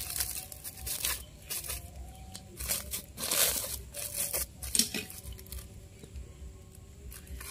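Woven plastic sack rustling and crinkling in irregular bursts as hands work a rooted branch's soil ball into it, loudest about three seconds in.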